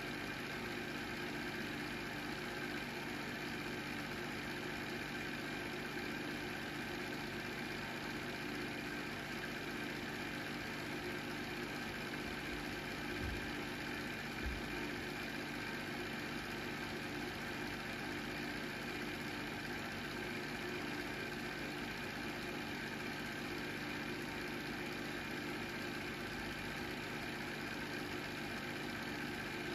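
Film projector running: a steady motor hum and whir with fixed tones, with two faint low thumps a little under halfway through.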